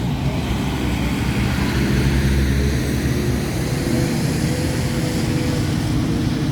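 Heavy diesel engine of large mining machinery running steadily under load, a continuous low drone, with the deepest rumble swelling briefly about two seconds in.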